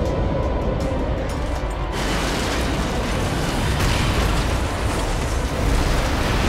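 Reconstructed crash of a runaway freight train derailing: a loud, continuous crashing rumble with booms, over dramatic music, growing harsher and fuller about two seconds in.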